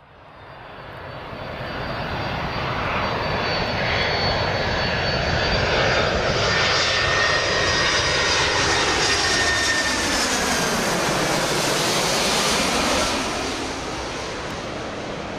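Jet airliner passing close by: loud engine noise with a high whining tone that swells up over the first few seconds, holds, then eases off somewhat near the end.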